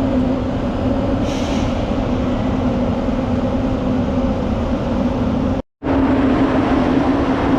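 Grain-handling machinery running steadily: a constant mechanical hum with a steady drone, which drops out for an instant about three-quarters of the way through.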